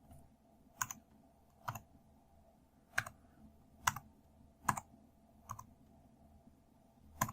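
Single key presses on an Anker A7726 ultra-compact Bluetooth keyboard's scissor-switch keys, about seven separate clicks roughly a second apart, typing in a pairing PIN one digit at a time.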